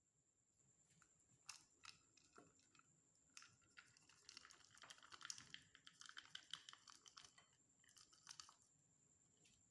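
Dark chocolate chunks rattling out of a plastic measuring cup and dropping into soft cookie dough in a bowl: scattered clicks and crunchy patters, thickest in the middle, with a few more near the end.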